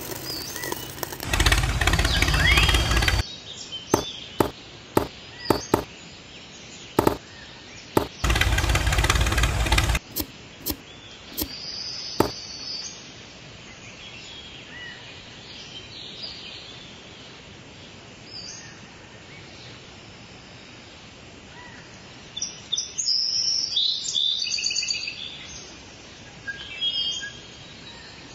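Small birds chirping over steady outdoor background noise, with a run of sharp clicks and two loud bursts of noise, each about two seconds long, in the first ten seconds.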